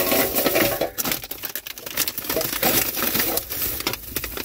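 Irregular small clicks, knocks and rustling as items are handled and put away inside a car, over a steady patter of rain on the car.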